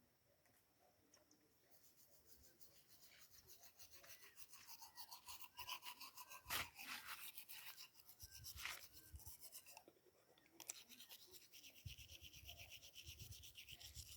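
Toothbrush scrubbing teeth in quick back-and-forth strokes. It pauses briefly about ten seconds in, then starts again.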